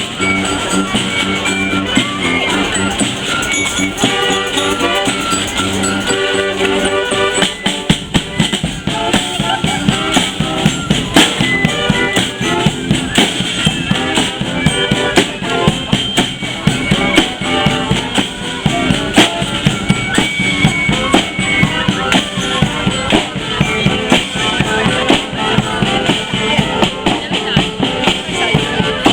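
Live brass-and-drum street band playing: held horn notes over drums, then from about seven seconds in dense, fast drumming under the higher horn lines.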